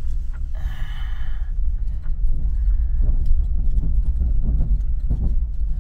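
Vehicle rolling slowly across a wooden plank bridge, heard from inside the cabin: irregular clunks and knocks of the tyres on the loose planks over a steady low engine and road rumble.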